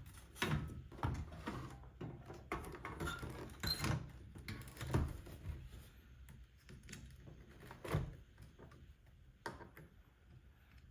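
Scattered light clicks and knocks from the plastic and metal parts of a car radio head unit being handled and worked apart at its clips, with a sharper knock about eight seconds in.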